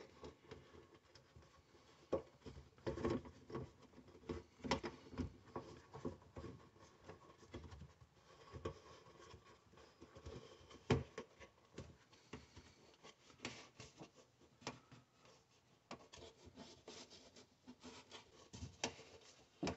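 Plastic sink drain fittings being handled and pushed together under a kitchen sink: scattered light knocks, clicks and rubbing of plastic on plastic.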